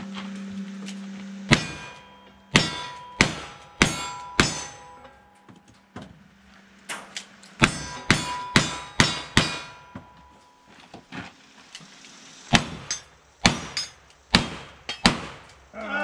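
Gunfire on a cowboy action shooting stage: a string of about five pistol shots, a pause, about six more shots at a quicker pace, then a few more spaced shots near the end. Several shots are followed by a brief ring of steel targets being hit.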